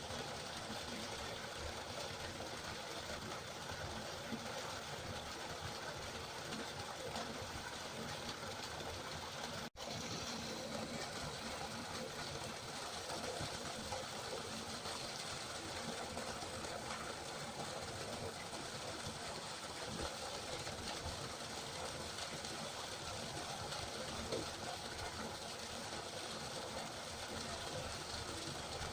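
River water flowing with a steady, even rush. The sound drops out for an instant about ten seconds in.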